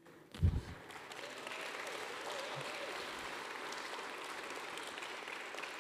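Audience applauding, rising about half a second in and then holding steady, with a low thump just before it begins.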